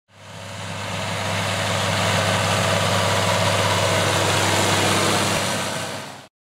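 John Deere tractor engine running steadily with a deep hum as the tractor and its trailer go past close by. It fades in over the first second and cuts off abruptly near the end.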